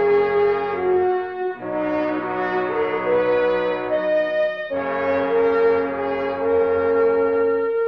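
Brass-led film score playing held chords with a moving line on top, the chords changing in blocks, with short breaks about a second and a half in and again near five seconds.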